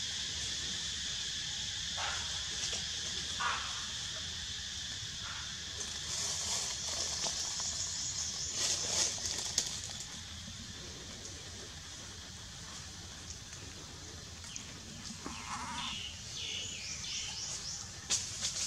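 Newborn long-tailed macaque giving short, thin cries a few times, with a cluster of them near the end, over a steady high hiss.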